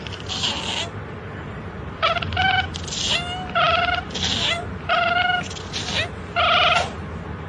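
A cat meowing over and over in short, even-pitched calls, about eight of them, over a steady background hiss.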